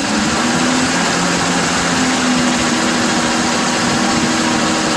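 Old 6-volt Chevrolet engine brought up to a higher speed at the start and held steady, to see how high the generator will charge with no electrical load.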